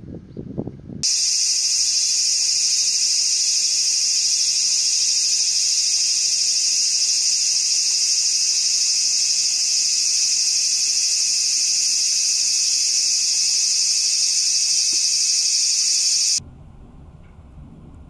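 Loud, steady, shrill chorus of insects that cuts in about a second in and stops abruptly near the end. Faint low background noise is heard before and after it.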